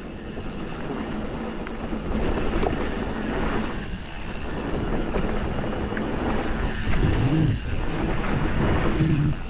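Hardtail mountain bike riding down a dirt trail: wind rushing over the microphone and knobby tyres rolling on packed dirt, with a few knocks from the bike over bumps. It grows louder about two seconds in.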